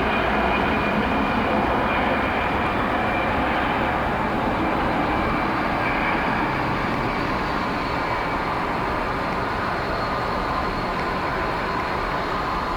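Jet airliner's engines running: a steady rush of noise with a faint high whine, slowly fading.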